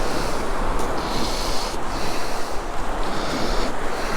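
Wind blowing on the microphone over the rush of surf on a beach: a steady noise, with a higher hiss that swells and fades about once a second.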